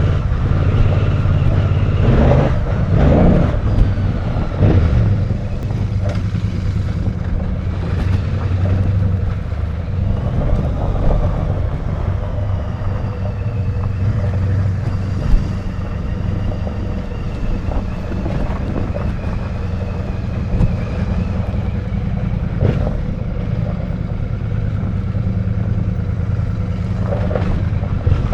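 Royal Enfield Bear 650's 648cc parallel-twin engine running steadily under way, heard from the rider's seat, with a single sharp knock about halfway through.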